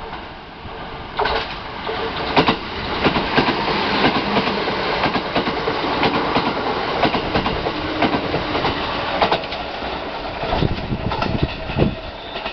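Kintetsu express electric train passing through the station without stopping, its wheels clattering over the rail joints. It grows loud about a second in and drops away near the end as the train recedes.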